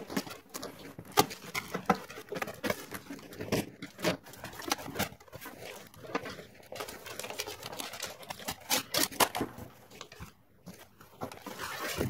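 Plastic packing tape being peeled and ripped off a cardboard shipping box, with the cardboard handled in irregular rustles and scrapes.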